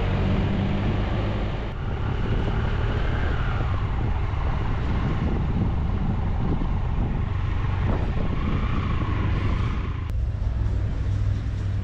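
Motorcycle engine running at low town speed under steady wind and road noise, its pitch rising and falling a couple of times.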